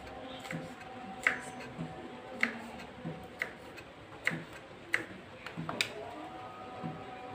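Kitchen knife chopping on a wooden cutting board while slicing chillies and shallots: about six sharp knocks, roughly one a second.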